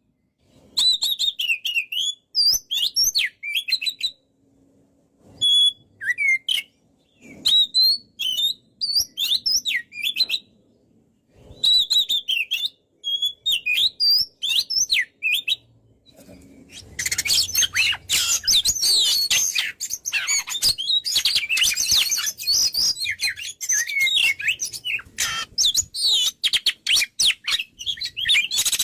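Oriental magpie-robin (kacer) singing loudly: short phrases of quick, varied whistles and chirps separated by pauses, then, a little past the middle, an unbroken, dense run of song with sharp clicking notes mixed in.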